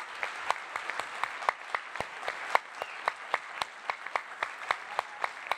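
Audience applauding, a dense patter of many hands, with one set of hands clapping close and steadily at about four claps a second above the rest.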